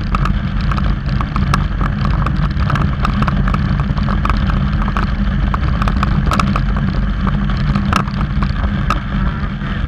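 Motorcycle riding at road speed, its engine and tyre noise buried under heavy wind rumble on the microphone, with frequent crackling clicks from the wind buffeting.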